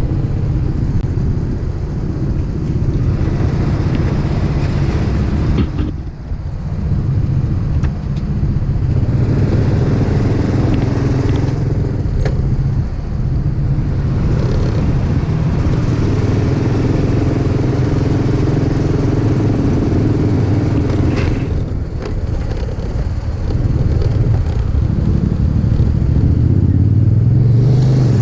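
Freshly overhauled motorcycle engine running under way, with a few brief dips in the engine sound and a climb in pitch near the end as it accelerates.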